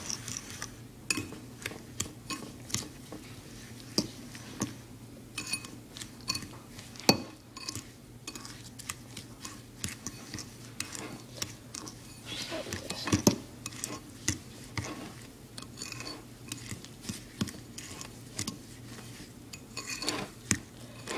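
A fork stirring softened butter and sugar together in a small bowl, with irregular clinks and scrapes of the fork against the bowl.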